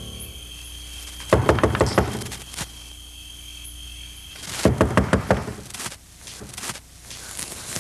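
Knocking on a closet door from inside: one burst of quick, loud knocks about a second in, and a second burst a few seconds later.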